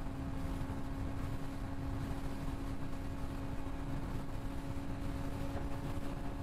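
Suzuki GSX-R sportbike engine running at a steady pitch while cruising at highway speed, with wind rumbling on the microphone.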